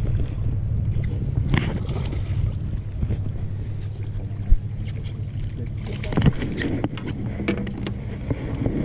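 A steady low rumble on an open fishing boat, with a few sharp knocks from the camera being handled and moved about, the loudest about halfway through.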